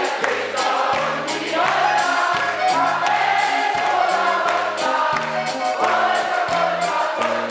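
Live rock band playing a polka-rock song: several singers singing together in chorus over electric guitars, bass and drums with a fast, steady beat.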